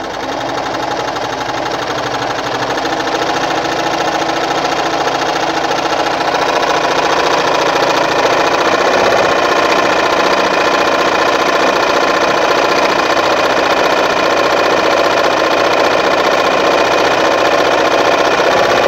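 Victoria Nuzstitch ZZ-570 household sewing machine stitching at a shortened stitch length, its needle and motor running with a fast, even chatter. It builds up speed over the first couple of seconds, then runs steadily.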